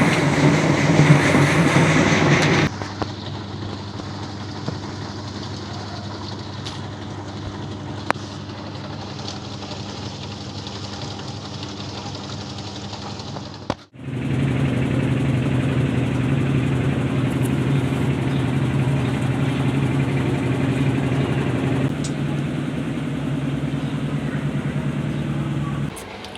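Mika MWATL3508DS top-load washing machine on its spin cycle: a steady motor hum from the spinning drum. It is quieter for a stretch, stops abruptly about fourteen seconds in, and comes straight back louder.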